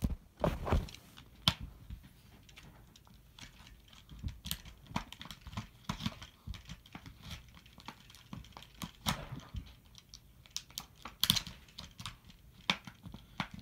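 Faint, irregular clicks and crinkles of a plastic clamshell blister pack being handled and worked at.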